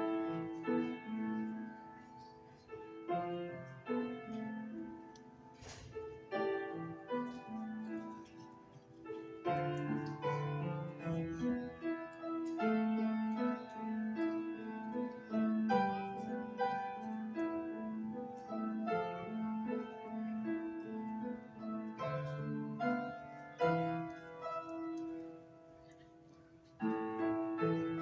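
Grand piano played solo: a slow piece of held chords and melody notes that comes in suddenly at the start, softens for a few seconds, grows fuller, then drops away and comes back in loudly just before the end.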